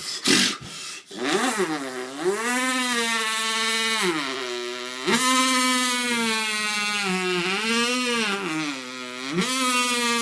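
A man's voice imitating a chainsaw: a few short sharp bursts at the start, then a steady buzzing engine note that revs up and dips back down several times.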